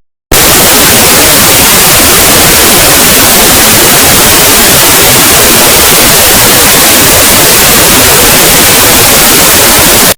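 Extremely loud, harsh static-like noise spread evenly from low to high pitch, starting a moment in and cutting off abruptly at the end: heavily overdriven, distorted audio.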